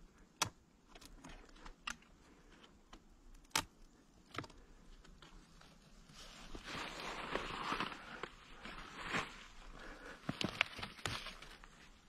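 Scattered sharp clicks and knocks from handling gear or clothing. A stretch of rustling starts about six seconds in, followed by another quick cluster of clicks near the end.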